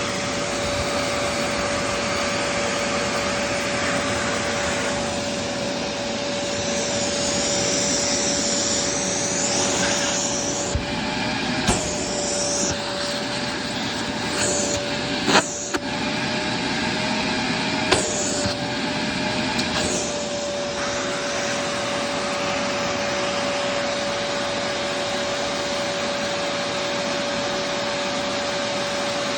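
Vacuum cleaner running steadily with a constant motor whine, the pitch wavering slightly in the middle as the load changes. Three sharp knocks, from about 12 to 18 seconds in, and short high hissing bursts as it is worked.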